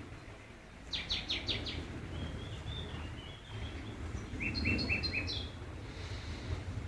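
Small birds singing: a quick run of five falling chirps about a second in, a short warble, then a rapid series of clear repeated notes later on, over a low steady rumble.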